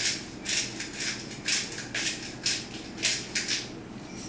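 A whisk scraping and swishing through a milk-based sauce in a skillet, in even strokes about two a second.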